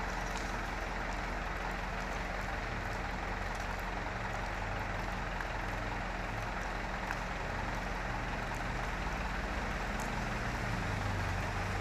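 Steady background hum with an even hiss over it, and a few faint light ticks.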